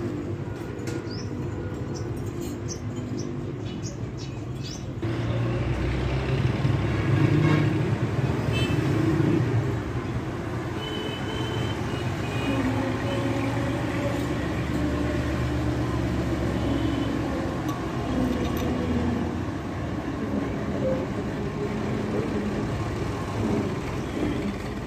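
A steady engine drone of a running motor vehicle grows louder about five seconds in and then holds. Birds chirp faintly during the first few seconds.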